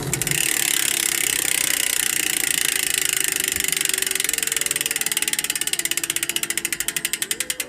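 Pasak mountain-bike rear hub freewheeling, its four-pawl, three-teeth-per-pawl ratchet clicking in a fast buzz that slows into distinct, evenly spaced clicks near the end as the wheel spins down.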